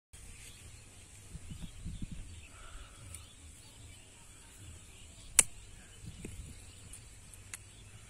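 Quiet outdoor ambience with a low rumble, a few faint ticks and one sharp click about five seconds in.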